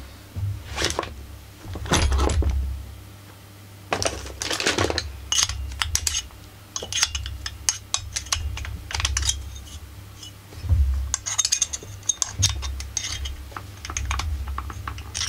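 Partly dismantled Husqvarna 44 chainsaw body being handled and turned over by gloved hands: irregular light clicks, knocks and rattles of its plastic housing and metal parts, over a low handling rumble.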